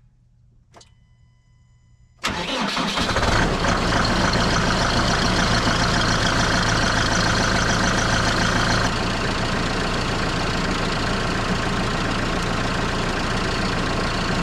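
A 100 hp diesel tractor engine, jump-started from a lithium jump box after its battery went dead, fires almost at once about two seconds in and runs steadily, settling a little quieter about nine seconds in. A short beep sounds just before it starts.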